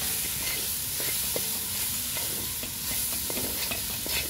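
Meat sizzling and steaming in a large pot over a gas burner, with a steady hiss. A spoon stirs it, clicking and scraping against the pot several times.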